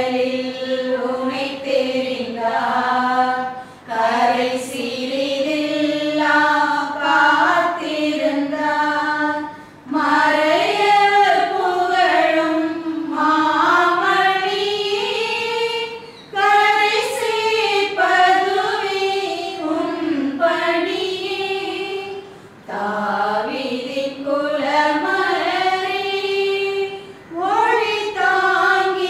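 Voices singing a hymn in long sung phrases, with a brief pause about every five or six seconds.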